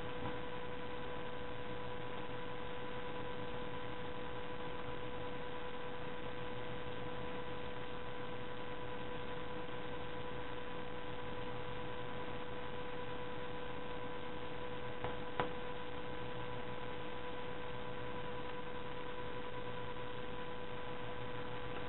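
A steady electrical hum with hiss underneath, in the background of the recording; a single faint click about fifteen seconds in.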